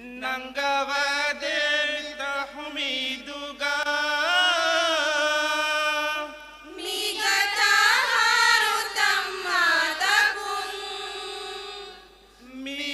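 Group madhaha, a Maldivian devotional song, sung unaccompanied by a mixed group of men's and women's voices in a slow, ornamented line with wavering held notes. The singing grows louder and fuller about seven seconds in, then drops away briefly near the end before resuming.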